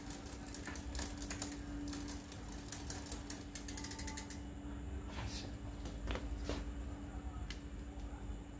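Bicycle rear hub ratcheting in rapid clicks as the cassette is turned and wiped with a rag. After about four seconds the clicking thins to a few separate metal clicks as the chain and rear derailleur are handled.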